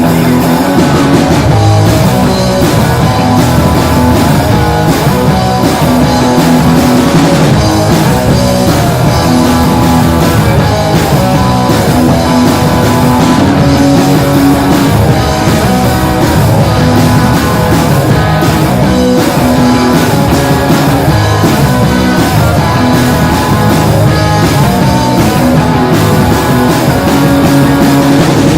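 Live rock band playing a heavy instrumental passage, two electric guitars, electric bass and drum kit, loud and unbroken.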